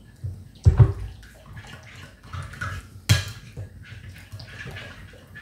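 Thick hoisin-and-honey sauce being stirred by hand in a glass bowl: irregular wet stirring sounds, with two sharp knocks, the loudest about a second in and another about three seconds in.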